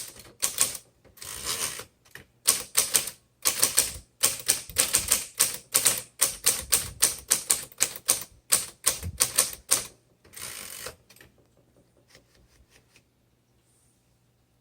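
A 1957 Royal Quiet De Luxe manual typewriter being typed on, with rapid, irregular key strikes and two longer rasping sounds among them. The typing stops about eleven seconds in, and a few faint clicks follow.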